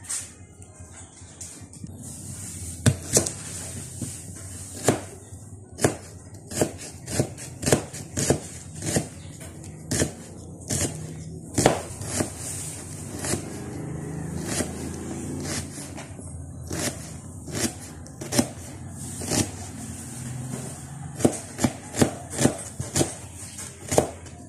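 Kitchen knife slicing shallots on a cutting board: irregular sharp knocks of the blade striking the board, sometimes a few a second, with short pauses between runs of cuts.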